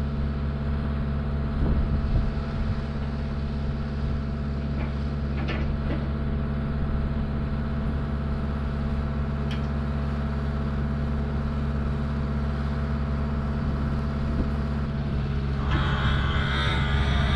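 Engine running steadily at idle, with a few faint knocks; about sixteen seconds in a louder, busier higher-pitched noise joins it.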